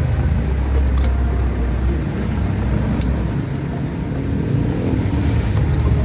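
A vehicle engine running with a steady low rumble, with a few sharp clicks about one second and three seconds in.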